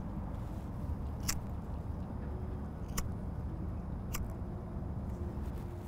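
A cigarette lighter struck three times, about a second and a half apart, in short sharp clicks over a steady low background rumble.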